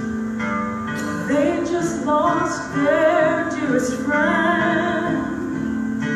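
A woman singing a gospel solo with a wide vibrato, accompanied by piano.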